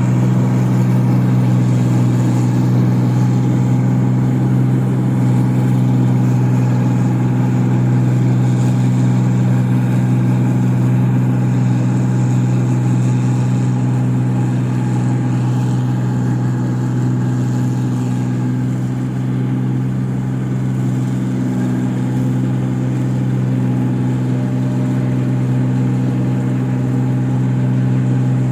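Engine of a rice-paddy machine running steadily at constant speed, a steady low drone that does not change.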